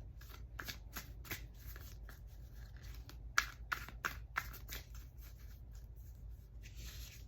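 Tarot cards being shuffled and handled by hand: a run of quick, irregular card snaps and flicks, with a short sliding rasp near the end.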